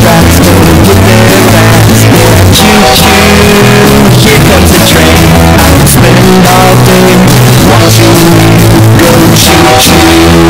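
Very loud bass-boosted rock music with guitar and strong held bass notes, pinned at full loudness throughout.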